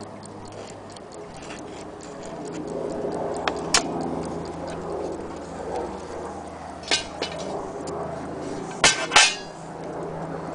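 Kienzle quartz mantle clock movement ticking faintly and regularly, with a few sharp knocks and clinks, the loudest a quick double knock near the end.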